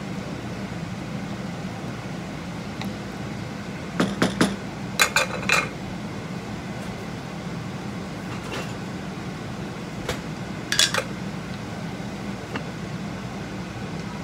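Several ringing metallic clinks of pots and utensils over a steady kitchen hum: a quick cluster about four seconds in, another about five seconds in, and one more near eleven seconds.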